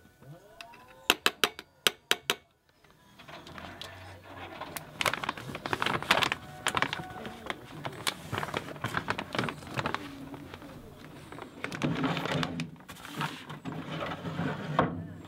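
Dry dog kibble and a spoon clinking in a stainless steel bowl, a quick run of sharp ticks about a second in. Then a paper pet-food bag crinkles steadily as it is folded and rolled shut, with a wooden cabinet door handled near the end.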